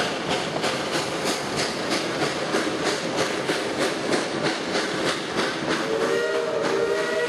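Reading & Northern steam locomotive working ahead of the train, its exhaust beating evenly about four times a second. About six seconds in, its multi-note steam whistle starts to blow and holds.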